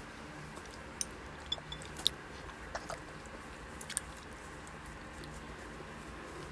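Toddler chewing food with her mouth and fingers, with a few short, sharp, wet clicks and smacks scattered through the first few seconds over a faint steady background hum.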